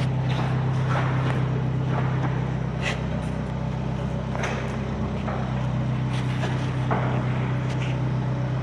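A steady low mechanical hum, like a running engine or machine, with a few faint scattered clicks over it.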